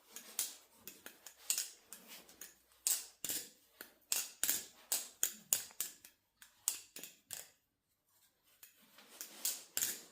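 Steel balisong being flipped: quick, irregular metallic clicks and clacks as the handles swing around and strike the blade and pins. The clicking breaks off for about a second near the end, then starts again.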